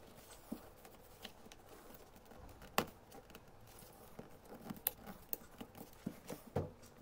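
Scattered small clicks and light rustling of hands handling wires and small parts, with a sharper click about three seconds in and a quick run of clicks near the end.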